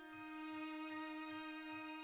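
Slow, calm instrumental background music: one long held note over a soft low pulse that repeats a little over twice a second.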